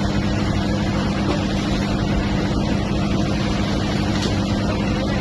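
Fishing boat's engine running steadily, a constant low hum over a wash of noise.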